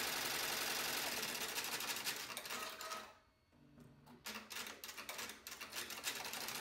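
Multi-needle commercial embroidery machine stitching with a fast, even rapping rhythm. About three seconds in it stops for roughly a second, gives a few separate clicks, and starts stitching again near the end.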